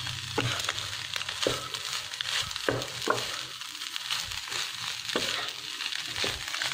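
Rice and egg sizzling in a nonstick wok over high heat as a wooden spatula stir-fries it, with a short scrape or knock of the spatula against the pan about every second.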